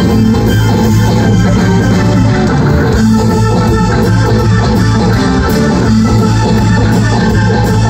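Live rock band playing loud and steadily: bass guitar, drum kit and keyboard.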